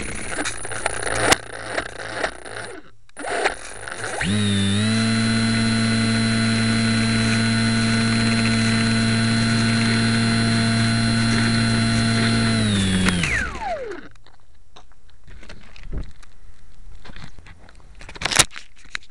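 Small RC plane's brushless electric motor (Cosmotech CT1811-2000) and propeller, heard close up from a camera on the airframe: it spins up about four seconds in, holds a steady whine for about eight seconds, then winds down. Knocks and rattles come before and after.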